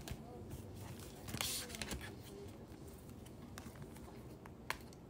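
Paper sheets being handled on a desk: sliding and rustling, with scattered light taps and clicks and a louder rustle about a second and a half in.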